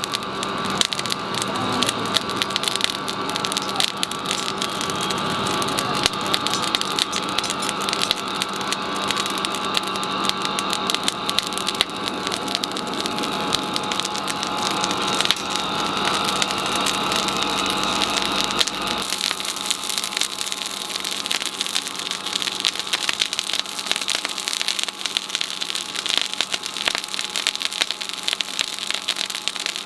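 Charcoal forge fire under a forced-air blast, crackling densely with a steady hum from the air blower. The hum stops about two-thirds of the way through, and the crackling goes on after it.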